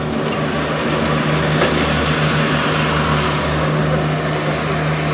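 An engine running steadily: a constant low hum over a hiss of broad noise.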